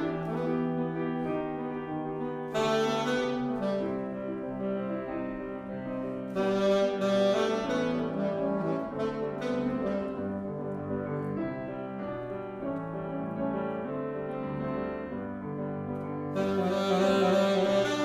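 Saxophone playing a sustained melody over grand piano accompaniment, the saxophone swelling louder and brighter in phrases about three, seven and seventeen seconds in.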